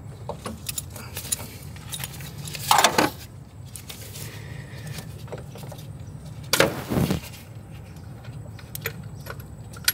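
Socket wrench and metal parts clinking and rattling while the alternator's long mounting bolt is worked loose with a 14 mm socket, with two louder rattling bursts about three and seven seconds in.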